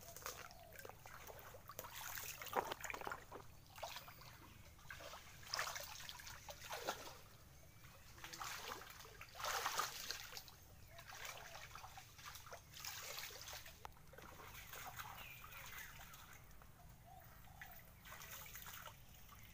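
Several people wading through shallow water and soft mud, making irregular splashes and sloshes.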